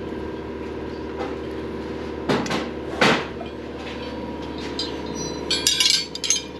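Knocks and clatter of metal tools and parts being handled: two single knocks around the middle, then a quick run of clinks near the end, over a steady background hum.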